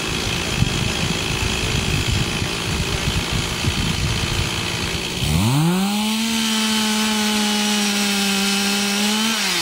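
Two-stroke chainsaw running roughly at low speed. About five seconds in it is throttled up to a steady, high full-speed scream, held for about four seconds. Near the end it is released and starts to fall back.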